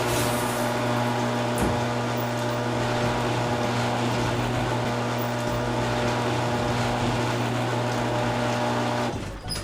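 Garage door opening: the door opener's motor runs with a steady low hum over a broad rattling noise, then cuts off near the end.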